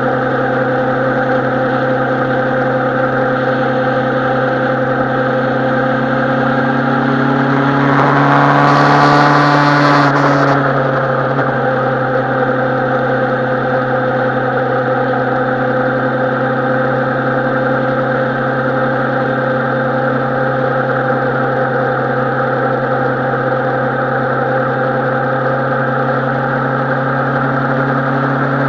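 Suzuki Bandit 650N inline-four motorcycle engine running steadily under way. About a third of the way through, the pitch rises briefly with a swell of hiss, then settles back to a steady note.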